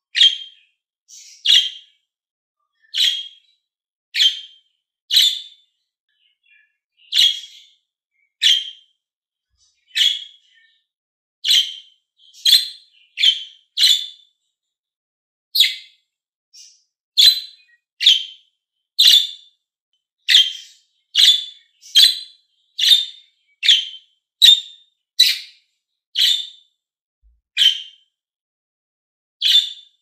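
Budgerigar calling in short, high chirps, about one a second, each brief with near silence between them.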